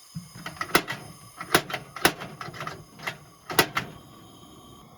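Several sharp knocks and clatters at uneven intervals, four of them loud, of camp cooking gear being handled and set down.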